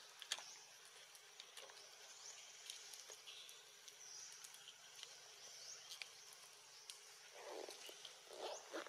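Faint outdoor forest ambience: a steady high hiss with scattered short chirps and clicks, and two brief louder sounds near the end.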